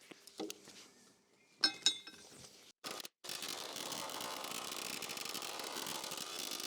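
A few light clinks and taps of tools being handled, then, from about three seconds in, a pneumatic air chisel fitted with a chaser runs steadily, rapidly hammering sheet steel down into a shaping buck to form the floor pan.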